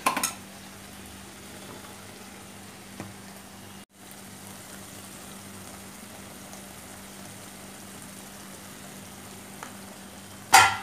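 Thick tomato curry base sizzling and simmering in an aluminium kadai over a gas flame, a steady soft hiss. There is a brief sharp knock near the end.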